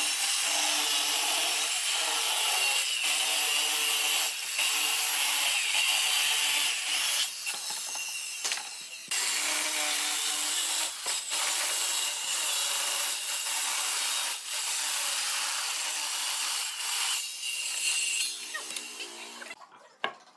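Handheld circular saw ripping along the edge of a rough-sawn wooden slab. The motor runs under load with a steady high whine over the noise of the cut. It eases briefly about eight seconds in, then the cut goes on and stops shortly before the end.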